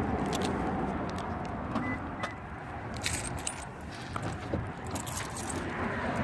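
Keys jangling in a scatter of short sharp clicks over a steady low rumble.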